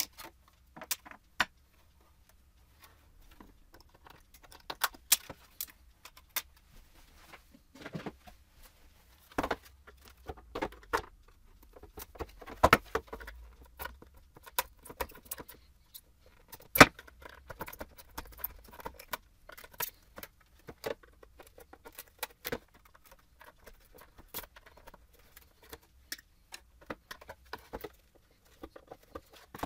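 Screwdrivers clicking, tapping and scraping against a plastic Chevrolet Avalanche headlight housing as it is taken apart, in irregular sharp clicks with a louder click about 17 seconds in.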